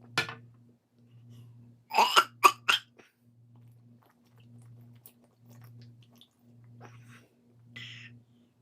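Short, loud bursts from a man's throat during a burping test: one just after the start, then a quick run of four about two seconds in, and a smaller breathy one near the end. Under them a faint low hum pulses on and off about once a second.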